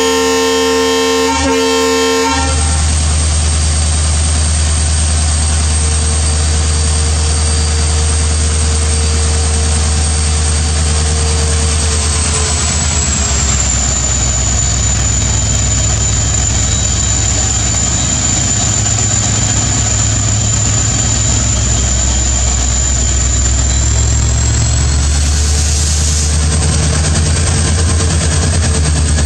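EMD WDP4D diesel locomotive sounding its multi-tone horn for about two seconds, then its two-stroke EMD 710 diesel engine running hard and steady as it pulls the express away, a low heavy drone with a thin high whine above it.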